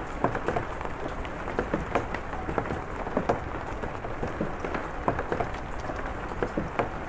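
Steady rain falling, a constant hiss with many irregular drops tapping on a hard surface.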